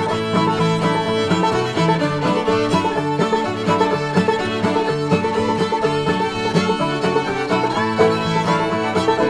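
Instrumental bluegrass-style music, fiddle and banjo playing a lively tune at a steady level.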